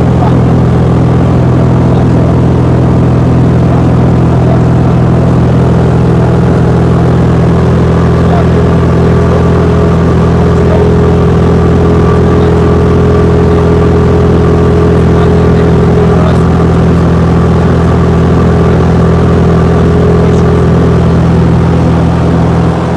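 Light aircraft's piston engine and propeller droning steadily, heard from inside the cabin.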